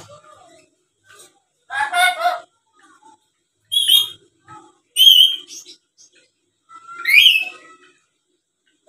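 Black-capped lory giving four short calls, spaced one to two seconds apart. The first is lower and voice-like, the next two are high whistles, and the last rises in pitch.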